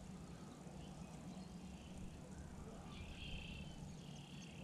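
Quiet open-air ambience with a steady low hum, and two faint high-pitched chirps about three and four seconds in.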